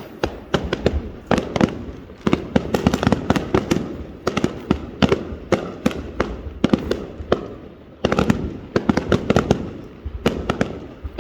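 Fireworks bursting in rapid volleys, many sharp bangs a second, with brief lulls between volleys.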